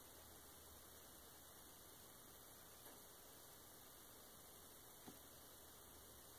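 Near silence: a faint steady hiss and low mains hum, with two tiny ticks about three and five seconds in.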